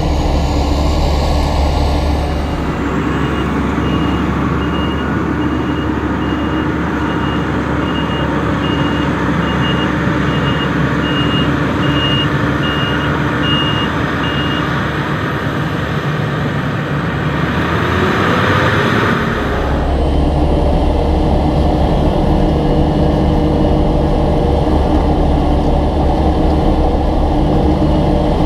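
Heavy diesel harvest machinery running steadily, with a reversing alarm beeping about once a second for roughly twelve seconds from a few seconds in. A rushing noise stops about nineteen seconds in, and the low engine drone then gets louder.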